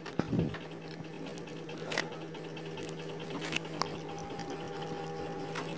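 A steady low machine hum, with a few light knocks and stirring noises from a wooden spatula moving chicken around in a pot of water.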